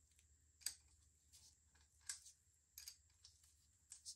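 Near silence with about five faint, irregular clicks and light taps from small metal parts being handled at an e-bike's rear hub axle and chain.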